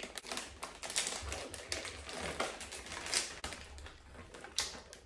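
A crinkly plastic snack bag being pulled open and handled by hand: a dense run of irregular crackles and rustles.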